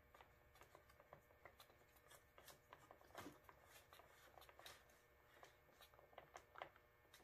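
Near silence with faint, irregular small clicks and rubbing: fingers turning a retaining nut onto a snowmobile's key switch by hand.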